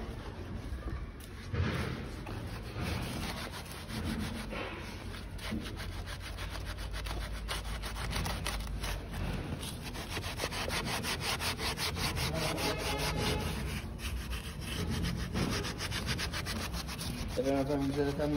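Fast, steady back-and-forth rubbing strokes of a hand tool or pad on a hard surface, as in sanding or scraping.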